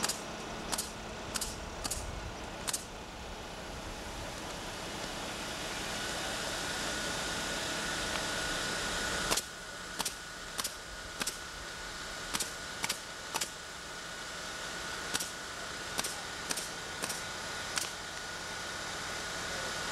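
Sharp hammer blows on a roof, in short irregular runs of two or three strikes with pauses, over a steady background rumble and a faint high tone. The background changes abruptly about nine seconds in.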